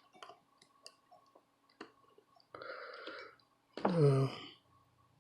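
Scattered faint clicks and ticks of small tools on a circuit board, then a brief low breathy sound and a short wordless voiced sound from the man about four seconds in.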